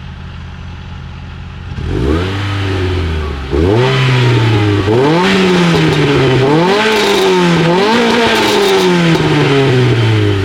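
Renault Clio 197's 2.0-litre naturally aspirated F4R four-cylinder engine idling, then revved repeatedly, with about five rises and falls in pitch, before easing back toward idle near the end. Heard from the front of the car.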